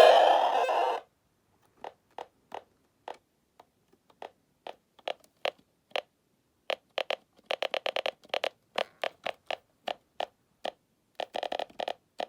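A malfunctioning skeleton animatronic's speaker glitching: a loud burst of harsh static cuts off about a second in, followed by scattered short electronic clicks and blips that speed up into rapid stuttering runs, like an old video game. This is its sound circuit failing rather than playing its phrase.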